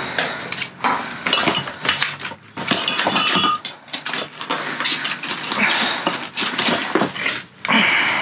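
Glass wine bottles clinking and knocking against one another, with broken glass rattling as they are pulled out and shifted, in a string of irregular clinks and clatters.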